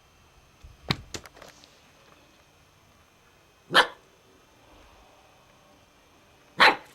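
Alaskan malamute puppy barking: two single short barks about three seconds apart, with a couple of light knocks about a second in.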